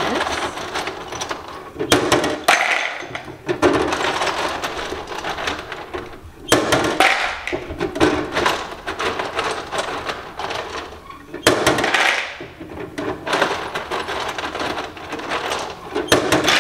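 Refrigerator door ice dispenser running in about four presses with short breaks, its motor whirring while ice cubes clatter into a plastic bowl.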